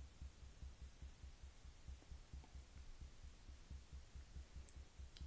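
Fingertips tapping on the collarbone in EFT tapping: a quick, even run of soft, dull thumps.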